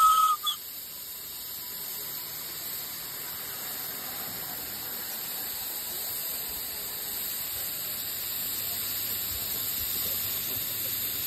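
Steady steam hiss from a live-steam miniature GWR King Class locomotive blowing off through its brass safety valve, after a short high whistle toot that ends about half a second in.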